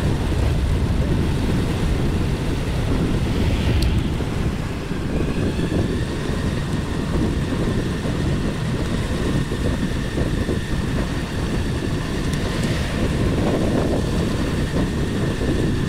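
Wind buffeting the microphone and tyre noise on pavement while riding along a street, a steady low rumble. A faint steady high whine joins about five seconds in and fades near the end.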